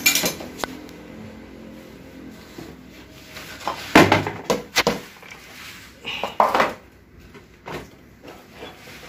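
Metal clunks and clatter as the differential assembly of an automatic transaxle is lifted out of its open aluminium case and set down, a burst of knocks about four to five seconds in and another around six and a half seconds.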